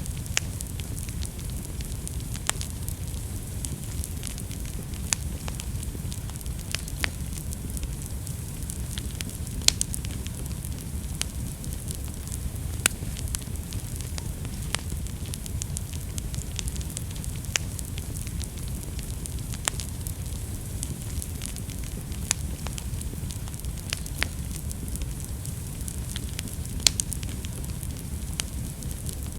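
Wood fire burning steadily with a low rumble and hiss, broken by sharp crackles and pops every second or two.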